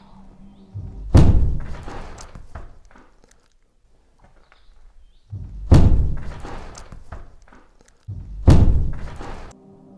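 Three loud, heavy thuds with a deep low end, each led by a short swell and ringing out for a second or more. They fall about a second in, just past the middle, and near the end.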